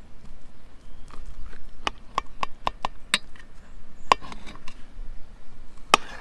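Table knife and fork cutting cooked beef liver on an enamel plate, the metal tapping against the enamel in a series of sharp clicks. The clicks come quickest about two to three seconds in, with a louder one near the end.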